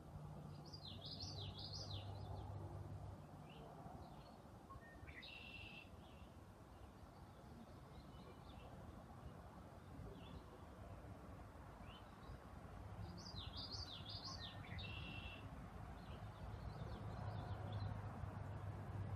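Faint bird song: two short phrases of quick notes rising and falling in pitch, about a second in and again about thirteen seconds in, with a few scattered chirps between them, over a low steady hum.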